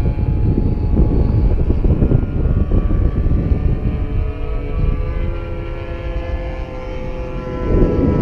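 Engines of radio-controlled model warplanes flying overhead, their pitch slowly falling and then rising again near the end as the planes pass and turn, over heavy wind rumble on the microphone.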